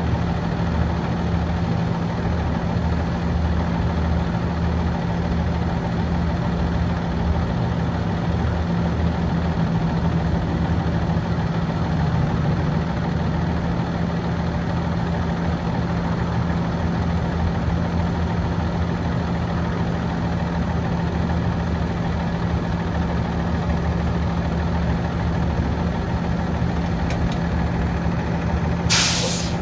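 2009 Peterbilt 335 dump truck's diesel engine idling steadily, with a short hiss of released air near the end.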